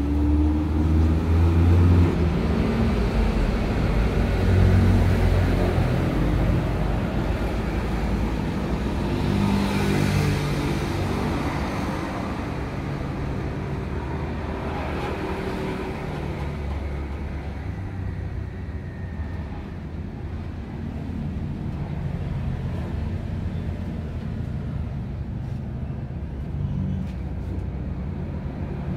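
Motor vehicle engines and road traffic, louder in the first few seconds, with a rushing sound that swells and fades about ten seconds in.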